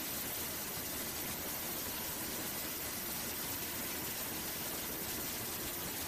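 Steady drone of an aircraft's engines and rushing air, heard on board, with an even hiss over a low rumble.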